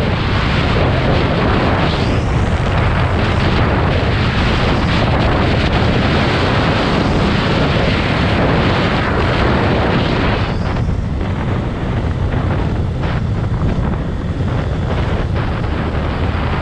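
Wind buffeting a moving motorcycle rider's microphone: a loud, steady, deep roar that masks the engine, with a little less hiss after about ten seconds.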